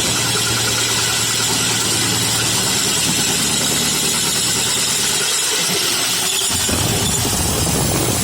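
Electric power tool motor running steadily, its low hum dipping and changing pitch for a moment between about five and seven seconds in.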